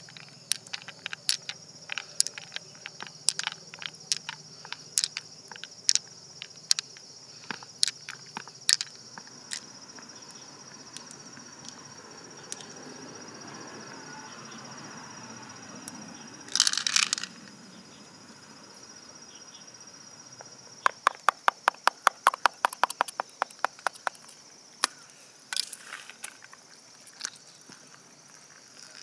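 Sharp wet clicks and crackles from hands squeezing pearls out of the flesh of a large freshwater mussel, over a steady high insect buzz. A short burst of noise comes a little past halfway, and later a fast run of clicks, about six a second, lasts some three seconds.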